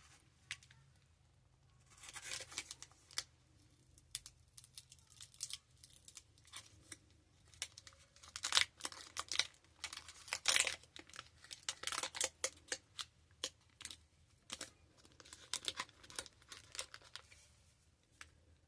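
Trading card pack wrapper being torn open and crinkled by hand, in irregular bursts of tearing and crackling.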